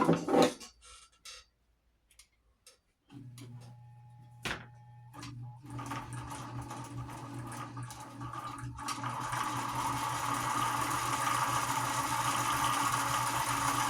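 A few light clicks and knocks, then the 1960 White sewing machine's motor starts about three seconds in and runs steadily while winding a bobbin. It speeds up and grows louder from about six to ten seconds in.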